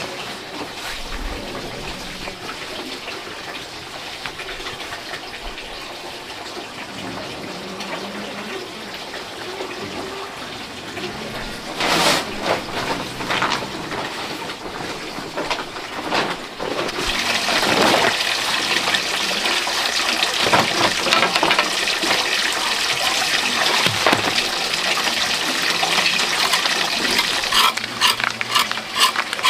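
Water running and splashing, growing louder a little past the middle, with scattered clicks near the end.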